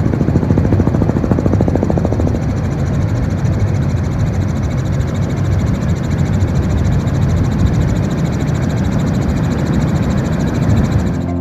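Helicopter in flight: a loud, steady engine and rotor drone.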